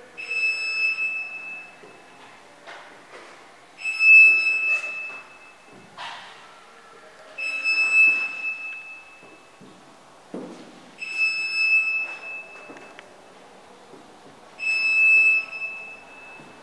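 An electronic alarm beeper sounds a high steady tone for about a second and a half, repeating five times at even intervals of about three and a half seconds. Fainter irregular noises come between the beeps.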